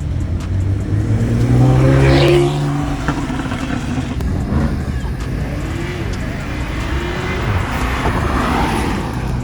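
Car engine revving: the pitch rises to a loud peak about two seconds in, then eases back to a steady rumble, with a smaller rise later on.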